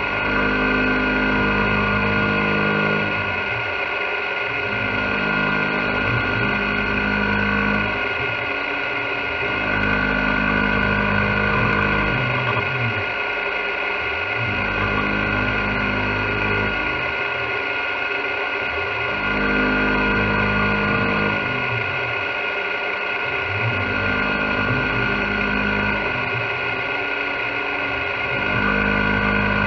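CNC milling machine cutting an aluminium block under flood coolant: a steady whine from the spindle and drive. Underneath, a lower running sound comes in for about three seconds and drops out for about a second, over and over, as the tool works back and forth through the part.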